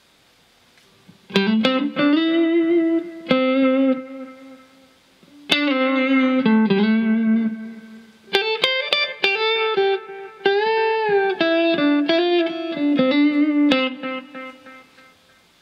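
Electric guitar played through a Caline Ghost Rain reverb-delay pedal in short melodic lead phrases with string bends and vibrato, demonstrating the pedal's echo-volume control. It starts after a short pause, and the last notes ring out and fade near the end.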